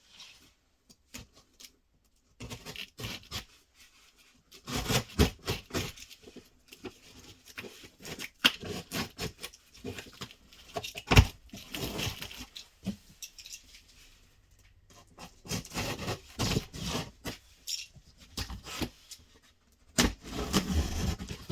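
A parcel being opened and unpacked by hand: irregular bursts of scraping, rustling and knocking as packaging and parts are handled, with a short lull midway.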